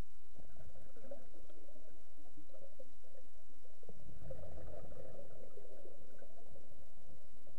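Muffled underwater sound heard through a camera housing: uneven bubbling and gurgling that grows stronger about four seconds in, over a steady low hum.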